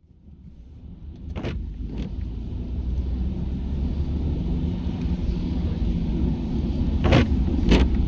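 A car running on the road: a steady low rumble that fades in over the first few seconds, with two sharp clicks or knocks about one and a half and two seconds in and two more near the end.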